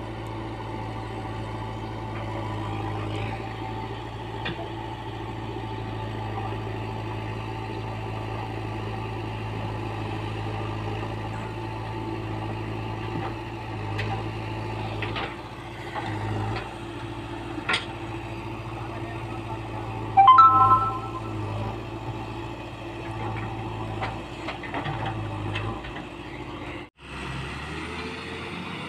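JCB 3DX backhoe loader's diesel engine running steadily while it works, with a few sharp knocks partway through. About two-thirds of the way in there is a brief loud beep of several pitches. Near the end, after a cut, the sound switches to a truck's engine running.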